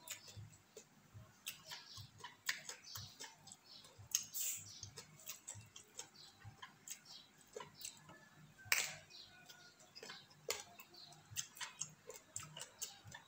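Close-up eating sounds: chewing and lip-smacking on raw vegetables and snakehead fish dip. Irregular sharp wet clicks, with louder smacks about four and nine seconds in.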